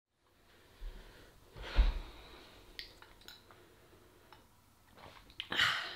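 A person handling a glass drink and breathing: a soft thump about two seconds in, a few light clicks, and a breathy exhale near the end.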